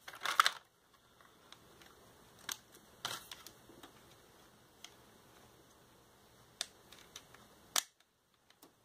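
Small hard plastic clicks and taps as soft plastic laser cannons are pushed onto the pegs of a toy X-Wing's wings: a quick cluster of clicks right at the start, then single clicks every second or few.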